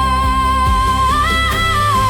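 Cinematic worship music: one held melodic line over sustained low pad and bass tones, stepping up in pitch about a second in and back down near the end.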